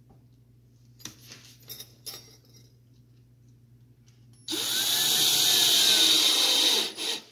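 Cordless drill driving a short Phillips screw through a metal corner bracket into a wooden frame. A few light handling clicks, then about a second and a half in from the middle the drill runs for about two and a half seconds, its pitch rising and then sagging as the screw goes in, with a short extra burst near the end.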